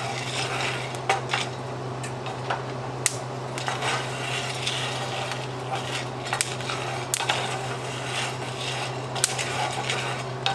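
Wooden spatula stirring and scraping coffee beans around a cast iron skillet during roasting, the beans rattling against the iron, with a few sharp clicks scattered through, past first crack. Under it runs the steady hum of an exhaust fan.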